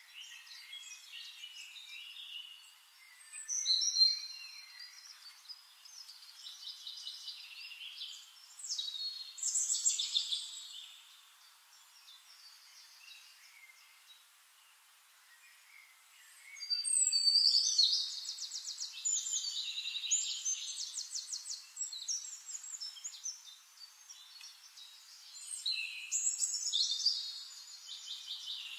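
Songbirds singing: several separate bursts of high song with fast, rattling trills, the loudest about 4 seconds in and again around 17 to 18 seconds, with quieter stretches between.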